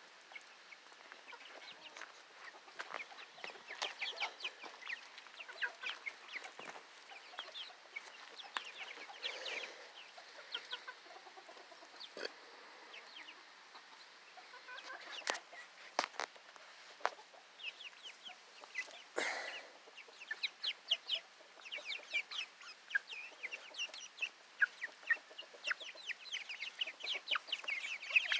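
A small flock of seven-week-old Golden Comet pullets peeping and clucking: many short high chirps coming thick and fast, busier in the second half. A few sharp knocks stand out along the way.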